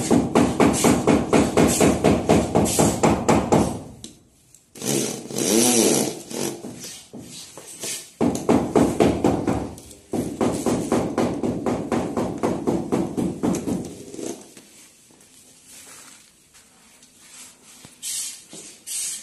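Electric drill driving screws to fix concealed hinges onto a cabinet door, running in three long bursts with a fast pulsing rattle.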